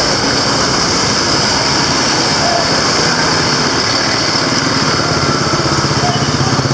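Street traffic: several vehicle engines running and idling in congested traffic, with a steady low engine hum that grows a little near the end.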